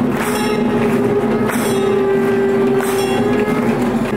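Live aarti music: steady held tones over a regular beat of bright metallic percussion clashes, about one a second.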